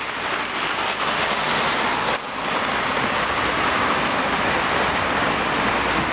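Model coal train running on its layout track, a steady rumbling hiss of wheels and motor, with a brief drop about two seconds in.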